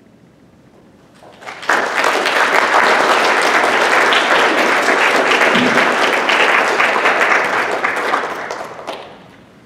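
Audience applauding at the end of a talk. The clapping starts about a second and a half in, holds steady, and dies away near the end.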